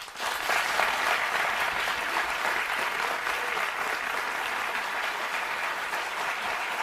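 Studio audience applauding, rising quickly at the start and then holding steady.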